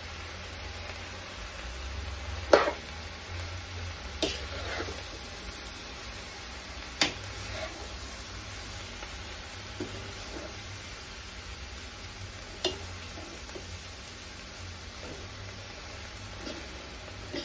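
Shredded cabbage frying with bacon and sausage in a large pot, sizzling under the scrape of a utensil turning it. Every few seconds the utensil knocks sharply against the pan, the loudest knock about two and a half seconds in.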